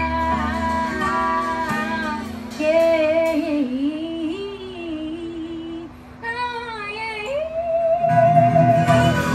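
Live band music: a woman's wordless, howl-like sung notes glide and waver over held guitar notes, and the full band comes back in loudly about eight seconds in.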